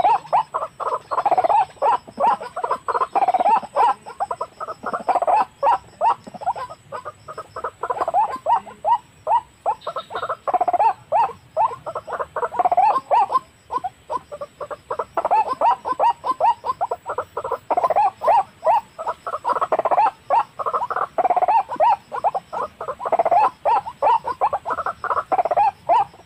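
White-breasted waterhens calling: loud, rapid, repeated croaking notes in long runs, with a short break about halfway through.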